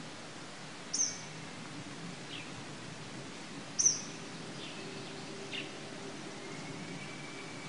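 Outdoor ambience with a steady background hiss and wild birds calling: two sharp, high, falling chirps about a second and four seconds in, fainter short calls between them, and a thin steady whistle near the end.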